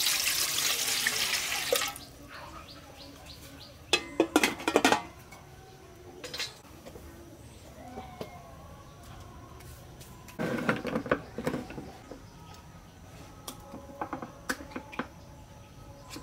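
Water poured from a plastic jug into a large aluminium pot, a loud splashing stream lasting about two seconds. Later come two short bursts of clattering knocks, about four and ten seconds in.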